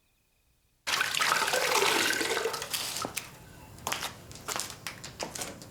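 Water pouring or splashing out in a rush that starts suddenly about a second in, loud for about two seconds and then trailing away, followed by a few scattered knocks and clicks.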